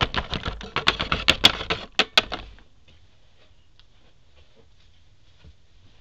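Hard plastic Littlest Pet Shop toy figure clicking and clattering quickly against a wooden tabletop as it is handled. The taps stop abruptly about two and a half seconds in, leaving only faint room hiss.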